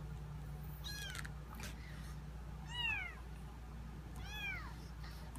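Kittens mewing: three short, high-pitched mews about a second and a half apart, each rising and then falling in pitch.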